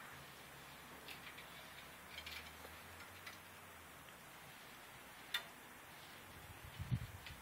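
Faint scattered clicks and taps of a recurve bow being handled as the next arrow is nocked, with one sharper click past the middle and a low thump near the end.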